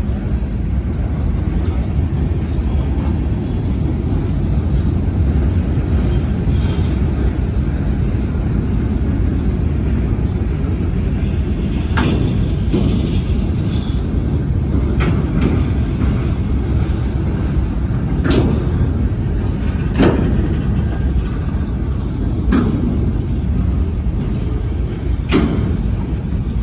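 Freight cars of a CSX local train, mostly boxcars, rolling past with a steady low rumble, and sharp clacks of wheels over the rail joints every couple of seconds in the second half.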